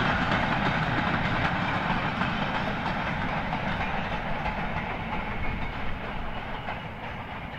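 Steam-hauled goods train passing and drawing away, its wagons and brake van rolling along the track, the sound slowly fading.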